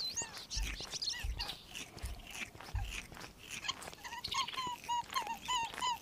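Faint clicks and crunches of a rabbit nibbling, with short chirps repeating through the second half.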